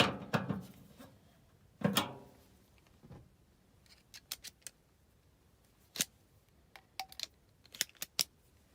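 Irregular metallic clicks and clanks from the furnace's replacement blower motor and blower wheel being handled and fitted, with a few louder knocks and runs of small quick ticks.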